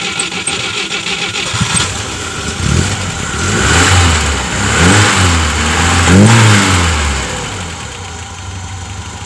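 Moskvitch 412's inline four-cylinder petrol engine, just started after cylinder head repair and valve adjustment. It runs, is revved three times in quick succession, then settles back to idle near the end.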